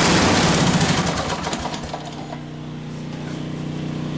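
Small gasoline engine on a pull-behind mower cranked with its new key switch, the starter turning it over rapidly and then dying away about two seconds in, with another engine running steadily underneath.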